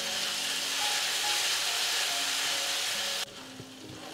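Sambal of chillies and Medan dried anchovies sizzling in hot oil in a pan, over soft background music. About three seconds in, the sizzle drops away suddenly, leaving the music and fainter sounds.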